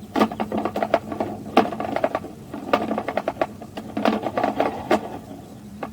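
Irregular clatter of sharp clicks and knocks from sewer inspection camera equipment being handled as the camera comes back out at the cleanout.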